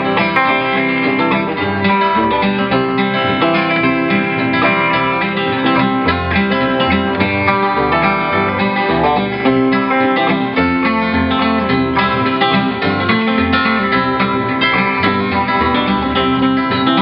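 Instrumental break of a country song: acoustic guitar and other plucked strings playing over a steady bass line, with no vocals.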